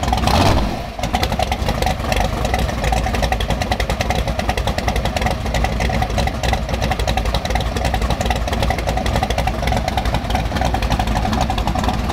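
Fox-body Ford Mustang drag car's engine idling steadily, with a short louder burst about half a second in.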